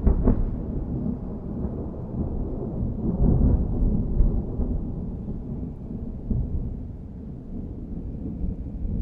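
Low rolling thunder rumble that starts loud, swells again about three to four seconds in, then slowly dies away.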